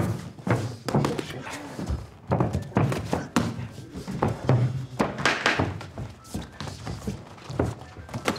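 Gloved punches landing during a fast sparring exchange: an irregular run of dull thuds.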